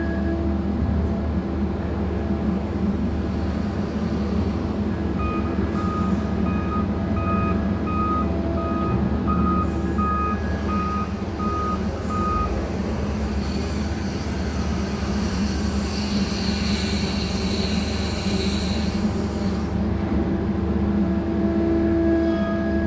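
Mantsinen 95 hydraulic material handler running steadily with a constant hum as it slews and lifts its grab. A warning beeper pulses about twice a second from about five seconds in to halfway through, then a high hiss rises over the drone for several seconds.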